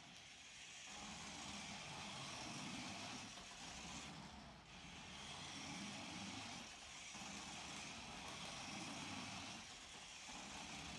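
Toy remote-control monster truck's small electric motor and gears whirring steadily as it drives round in circles, the low part of the whir swelling and easing every second or so.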